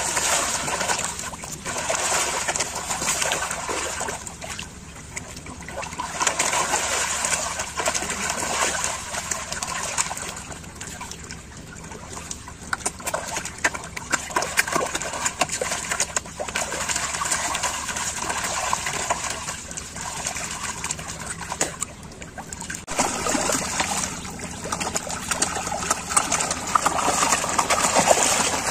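Water splashing and churning as a dense mass of catfish thrash and gulp at bait held at the surface, in surges that rise and fall every few seconds.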